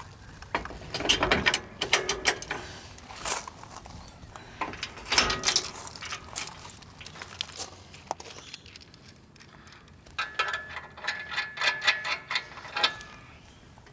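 Metal clanks and clicks of a boat trailer's coupling being latched onto a car's tow ball and its safety chain being fastened, with a quick run of rattling clicks near the end.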